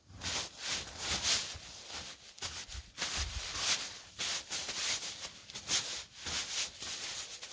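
Tent ground sheet rustling as it is handled and spread out, in a run of irregular swishes and rubs, several a second.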